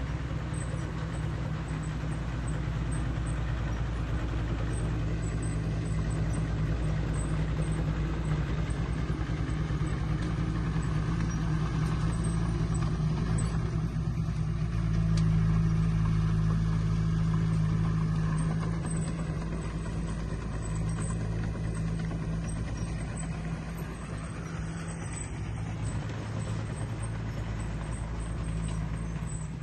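Diesel engine of a Komatsu D20 crawler bulldozer running steadily as it works. It grows louder for a few seconds about halfway through.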